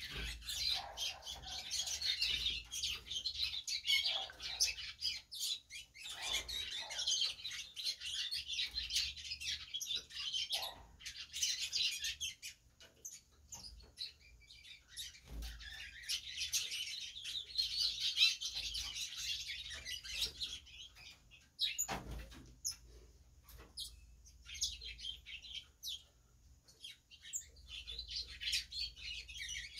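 Young chestnut-bellied seed finches (curiós) in cages chirping and twittering in busy bursts that come and go, with a single sharp knock about two-thirds of the way through.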